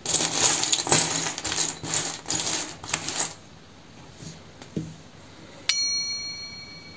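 Loose ChaoBao plastic building bricks clattering and clicking against each other as hands push through a pile of them, for about three seconds. A few faint clicks follow, then near the end a single ringing tone starts suddenly and fades away.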